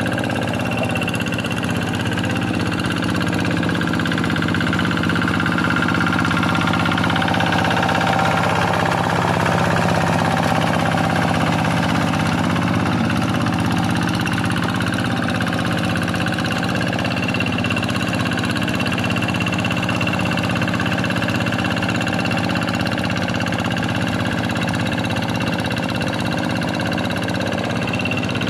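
Quick G1000 two-wheel hand tractor's Kubota single-cylinder diesel engine running steadily under load while ploughing a rice paddy, swelling slightly in the middle.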